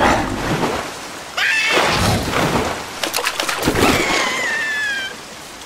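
Cartoon sound effects of steady rain and water splashing and sloshing, with a high squeaky cartoon larva's voice crying out twice, the second cry a longer falling whine.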